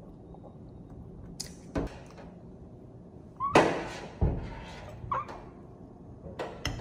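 Kitchen clatter: a handful of knocks and clunks, the loudest about three and a half seconds in, followed by a short rushing noise and a dull thud.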